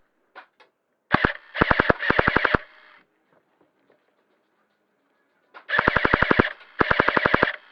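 Airsoft electric gun firing rapid full-auto bursts, about fifteen shots a second. There are several short bursts in the first few seconds, then two longer bursts near the end.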